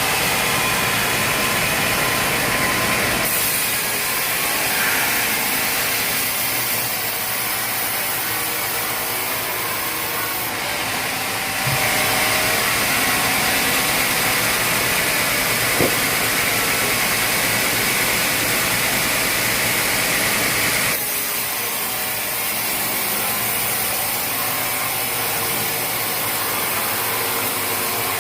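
A sawmill's engine running steadily. The sound changes abruptly a few times, with one short click about two-thirds of the way through.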